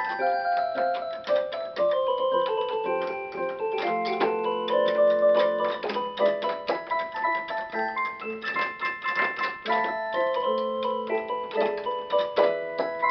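Electronic keyboard playing its drawbar organ voice: a melody over chords, the notes held steady without fading, with short clicks throughout.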